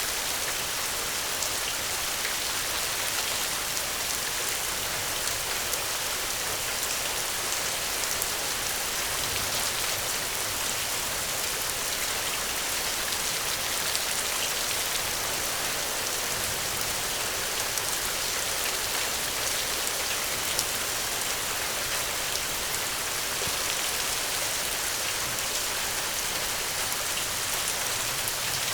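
Steady rain falling, an even hiss with many fine drop ticks.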